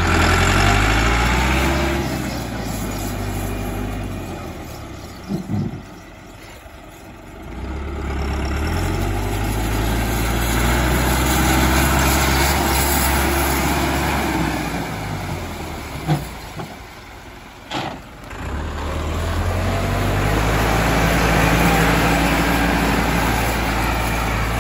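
Massey Ferguson 385 tractor's diesel engine working under load, revving up and easing off in three waves as it ploughs through water, with splashing and churning around the wheels. A few short knocks come in the quieter stretches.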